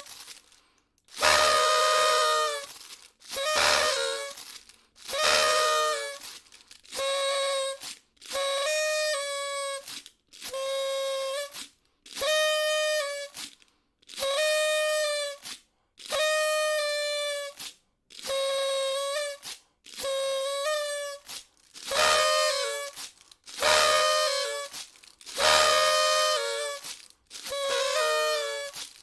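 Party horn (party blower) blown again and again: about sixteen buzzy, reedy blasts, each a second or more long and roughly two seconds apart, each holding one steady note that bends down as the breath starts or runs out.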